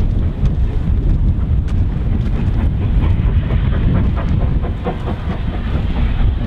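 Steam locomotive hauling a train of coaches past, with irregular clicks from its wheels, under a heavy rumble of wind buffeting the microphone.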